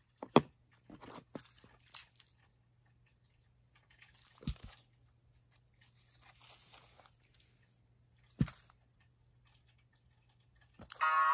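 Scattered taps, knocks and rustling from a plush Zhu Zhu Pets toy hamster being handled and moved about on its plastic playset, with a few sharper knocks spread through.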